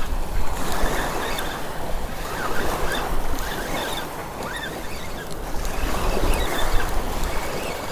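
Small waves washing on the shoreline, with wind rumbling on the microphone.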